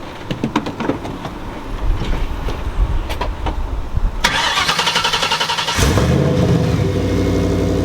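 Turbocharged Ford Mustang Bullitt's 5.0 L V8 being started on a new starter and fresh spark plugs: a few scattered clicks, then the starter cranks from about four seconds in, and the engine fires near six seconds and settles into a steady idle.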